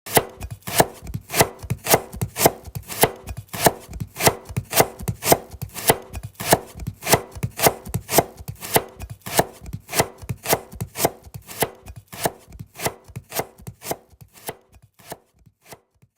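Kitchen knife slicing a carrot: a steady run of crisp cuts, about three a second, growing fainter and sparser near the end.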